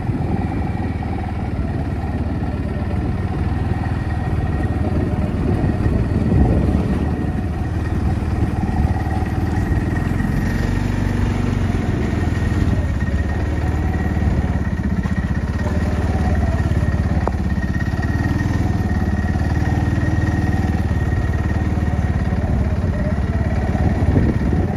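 Small farm vehicle engine running steadily at low revs while driving slowly behind a herd of cattle.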